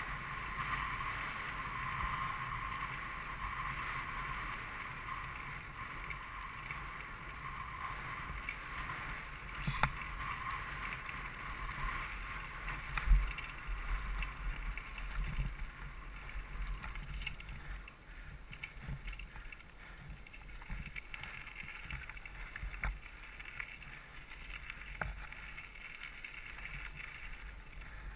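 Mountain bike rolling along with wind rushing over the rider's head-mounted camera microphone and tyre noise, a steady hiss that eases off after the first half. Bumps and knocks from rough ground, the loudest a sharp knock about thirteen seconds in.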